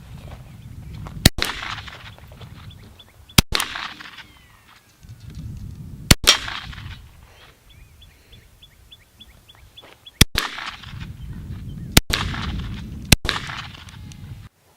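Ruger Mark III .22 LR semi-automatic pistol fired six times at uneven intervals of one to four seconds. Each sharp crack is followed by a rolling echo.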